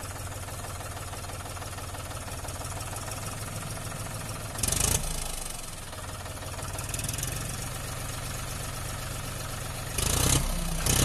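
John Deere 5105 tractor's three-cylinder diesel engine idling steadily, with two short louder noises about five seconds in and near the end.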